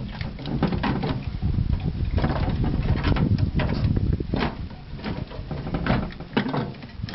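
Irregular metallic clunks and rattles from a microwave oven's sheet-metal casing as the heavy transformer, its bolts already out, is worked loose and pulled free by hand.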